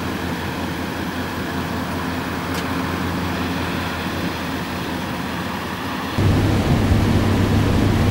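Steady low rumble and hiss of a vehicle with wind-blown snow. About six seconds in it cuts to a louder, deeper rumble of the vehicle driving on a snowy highway.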